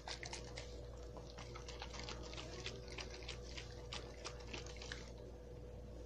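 Light clicks and taps, several a second and irregular, with a faint liquid sound; they stop about five seconds in. A faint steady hum runs underneath.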